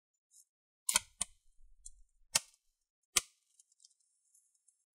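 Plastic rivets of a laptop palm rest snapping as the old keyboard is pulled up off it: four sharp snaps with faint crackling between them.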